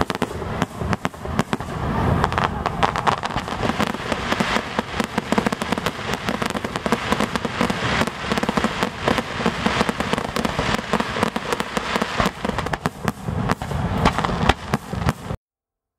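Aerial fireworks display: many shells and crackling stars bursting in quick, overlapping succession over a continuous rumble, cutting off suddenly near the end.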